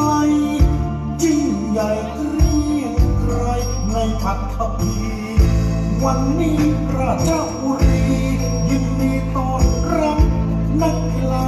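Recorded music played over a stadium sound system, with held bass notes changing every two seconds or so under a melody.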